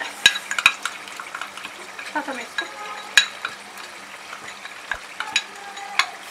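Tomato-onion masala frying in oil and sizzling in a metal pot, while a metal spatula stirs and clicks sharply against the pot several times.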